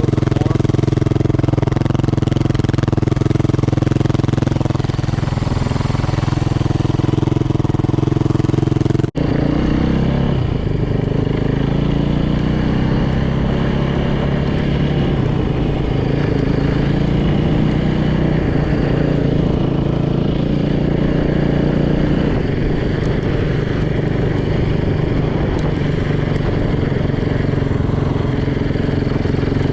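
Yamaha YZ450 dirt bike's single-cylinder four-stroke engine running while riding. It holds a steady note for about nine seconds, then after an abrupt break the revs rise and fall.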